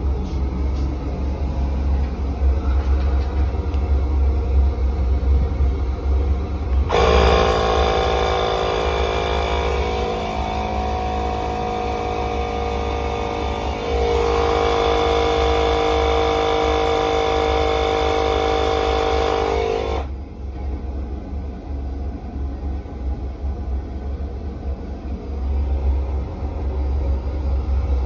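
A small electric air pump starts suddenly about seven seconds in and runs steadily for about thirteen seconds, pumping air into the boiler's expansion vessel to recharge it, then cuts off abruptly. A steady low rumble lies under it throughout.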